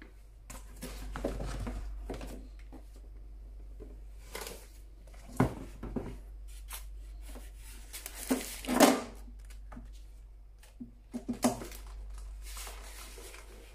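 Cardboard box and packaging being handled: irregular rustling, scraping and knocks as the sandwich maker is worked out of its box in a plastic bag and foam end blocks. The loudest knock comes about nine seconds in.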